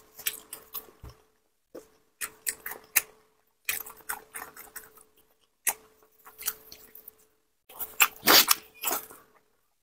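Close-miked wet chewing and smacking on a spicy braised pig trotter, in five bursts of clicks and squelches separated by short silences. The loudest burst, about eight seconds in, is a bite into the trotter.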